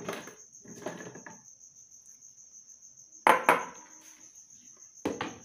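Blender jar and kitchenware being handled on the counter: rustling and clatter, then two sharp knocks close together about three seconds in and another near the end. A steady high-pitched trill runs underneath.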